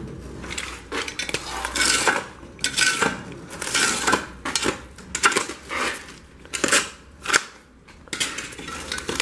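Ceramic breeze blocks clinking and scraping against one another as they are handled, with the crackle of their plastic wrapping, in short bursts about once a second.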